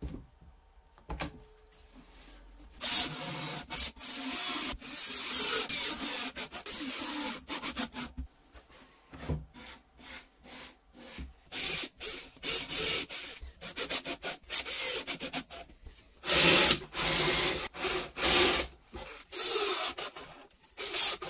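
Sandpaper rubbed back and forth by hand over plywood edges: a long stretch of steady scrubbing, then many short irregular strokes, with the loudest passes a little after the middle.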